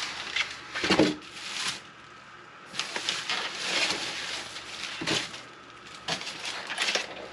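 Packaging rustling in irregular bursts as exhaust parts are handled and unwrapped, with a sharper knock about a second in and another about five seconds in.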